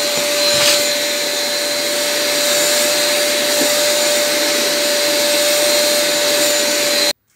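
Vacuum cleaner running steadily with a constant whine, its hose in a mandaçaia stingless-bee nest sucking out invading lemon bees. It cuts off abruptly near the end.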